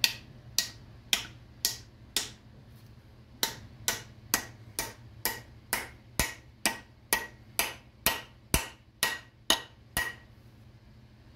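Steel hammer striking a wooden wedge to drive it into the top of a new axe handle, hanging the axe head. There are about twenty sharp blows, roughly two a second, with one short pause after the first five; the blows stop near the end.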